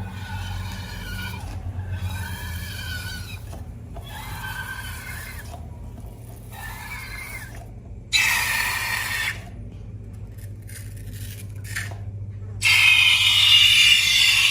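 Rubber balloon squeaking as it is rubbed and stretched: four long squeaks that waver in pitch. Later come two louder noisy rushes, the second lasting to the end.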